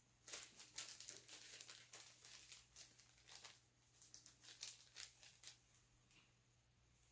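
Faint crinkling and rustling of plastic bait packaging being handled, a run of short scratchy crackles that dies down about five and a half seconds in.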